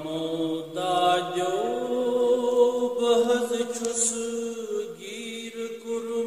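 A man singing a Kashmiri naat, a devotional song in praise of the Prophet, solo, in long held notes that glide up and down in pitch.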